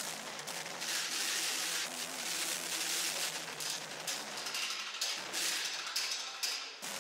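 Drum kit played hard, with crashing cymbals making a dense, noisy wash in uneven surges; the recording is loud and harsh.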